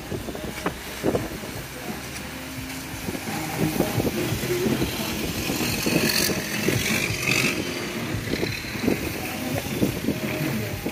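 A boat's engine running steadily, a low drone.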